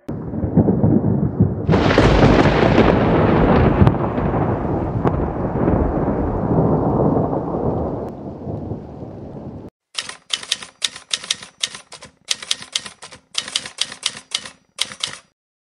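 Thunder sound effect: a loud crack about two seconds in, then a rumble that slowly fades and cuts off after several seconds. Then typewriter keys clacking in quick, uneven runs for about five seconds.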